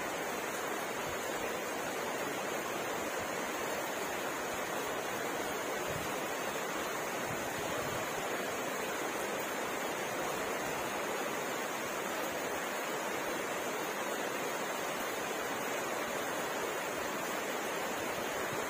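Rain falling steadily, an even hiss with no single drops, thunder or breaks standing out.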